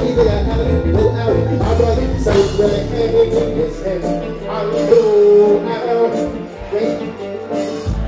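Live reggae band music with a man singing over it through a concert sound system. The deep bass drops away about two seconds in and comes back near the end.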